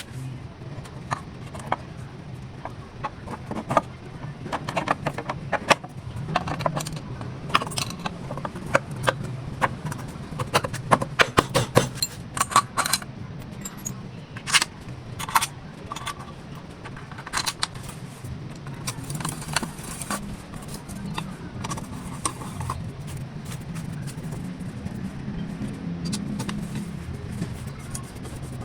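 Irregular metallic clinks and taps of hand tools and small metal parts being handled while a motorcycle starter motor is worked on, over a low steady hum.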